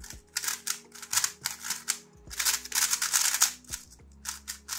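MoYu WeiLong WR M 2021 magnetic 3x3 speed cube being turned by hand: rapid runs of plastic layer-turning clicks and clacks, broken by a couple of short pauses.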